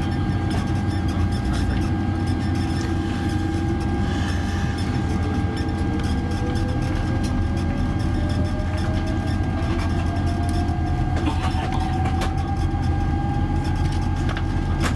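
Steady low rumble inside the cabin of a Boeing 747-400, with a thin whine that climbs slowly and smoothly in pitch from about three seconds in: one of its Rolls-Royce RB211 jet engines spooling up during start.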